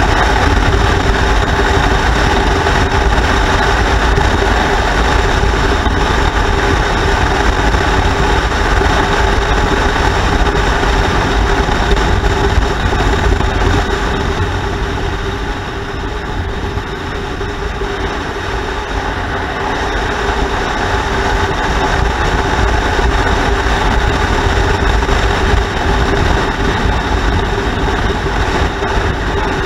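Motorcycle riding at steady road speed: a constant engine drone mixed with a heavy rush of wind and road noise. The sound eases off slightly about halfway through, then builds back up.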